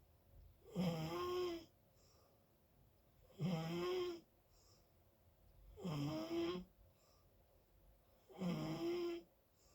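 Loud snoring: four snores about two and a half seconds apart, each under a second long and carrying a clear pitch, with quiet breathing in between.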